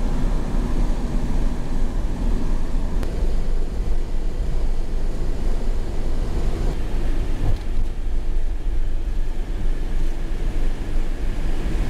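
Road noise inside a motorhome cab at driving speed: a steady rumble of engine, tyres and wind.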